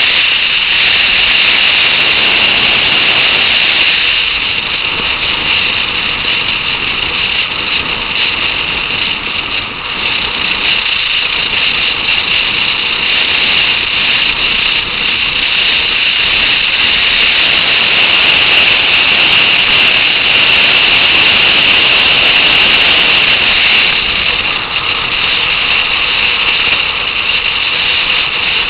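Steady, loud rush of wind and motorcycle engine and road noise on the microphone of a camera riding on a motorcycle at speed on a highway.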